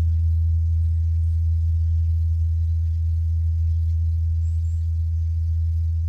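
Large bronze Korean Buddhist temple bell (beomjong) humming on after a strike: one deep, steady hum that fades only slightly, with no new strike.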